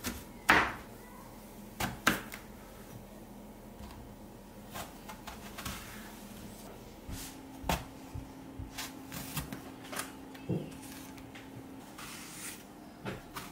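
A kitchen knife slicing through an eggplant onto a cutting board: irregular short taps as the blade goes through and meets the board, the sharpest about half a second and two seconds in.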